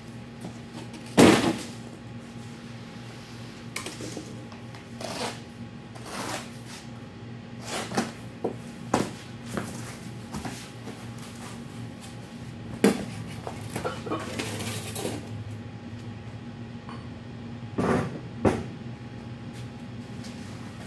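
Cardboard boxes being handled and unpacked: scattered knocks and thumps with cardboard rustling, over a steady low hum. The sharpest knock comes about a second in, and there are two more close together near the end.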